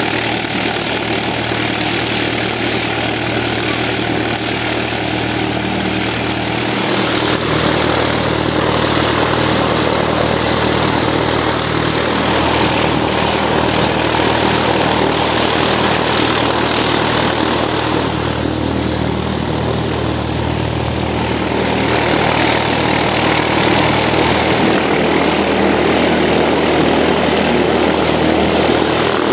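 Propeller-driven model tow plane's two-cylinder boxer engine running steadily at a loud, even pitch, with the propeller's whirr. The sound shifts slightly about a quarter of the way in and grows louder in the last few seconds.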